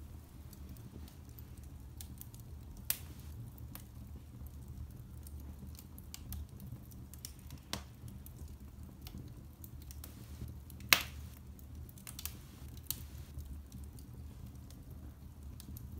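Scattered sharp clicks and crackles at irregular intervals over a low steady hum, with one louder crack about eleven seconds in.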